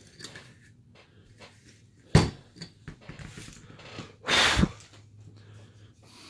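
Handling noises as the carving and glove are moved about: a sharp knock about two seconds in, a few lighter clicks, and a half-second rush of noise just after four seconds.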